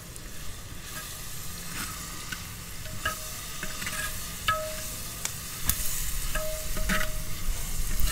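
Onions frying in oil sizzle steadily in a clay handi while a metal spatula stirs them, with scattered scrapes and clicks against the pot.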